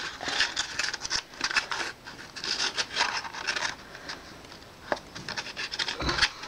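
Cardboard packaging scraping and rustling as a small circuit board is worked out of its tight paper sleeve box, in irregular bunches of scratchy rubbing, with a dull knock near the end.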